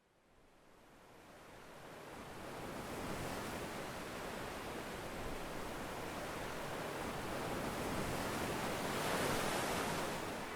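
Ocean surf washing on a beach, fading in from silence over the first few seconds, with a wave swelling near the end.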